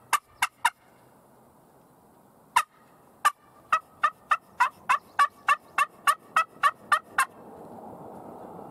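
Hand-held turkey call worked in a yelping sequence: three short yelps, a pause, then a longer, faster run of a dozen or so sharp yelps. Near the end a rush of passing traffic noise swells up.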